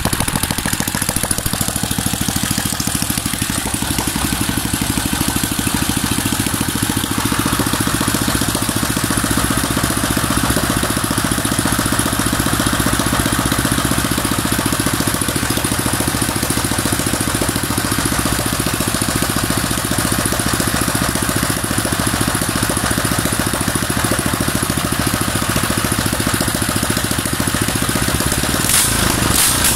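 Honda GX200 single-cylinder four-stroke engine, built up with a 76+2 mm piston and CNC rocker arms, running steadily on a test stand during its break-in run, with a fast, even exhaust beat. A few sharp knocks come near the end.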